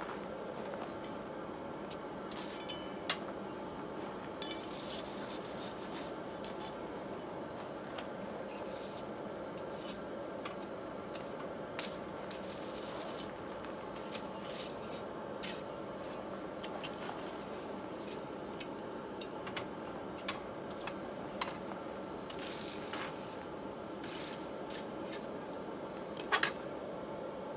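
Coal forge fire burning, with scattered sharp pops and ticks from the coal over a steady blower whir.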